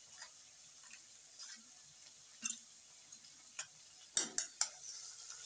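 Steel spoon stirring spice powders and water into a paste in a small stainless steel bowl: soft scrapes about once a second, then three sharp clinks of spoon on bowl in quick succession about four seconds in.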